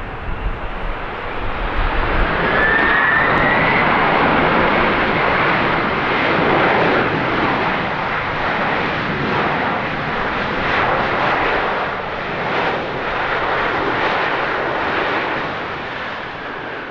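Boeing 747 freighter's four jet engines running loudly on the landing roll on a wet runway. The noise swells about two seconds in with a faint rising whine, holds as a steady rush, and eases off near the end.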